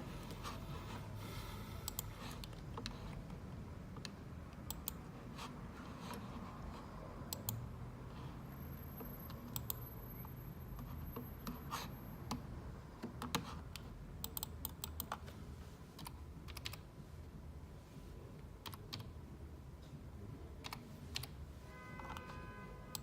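Scattered light clicks and taps at irregular intervals over a low steady hum, with a short pitched tone near the end.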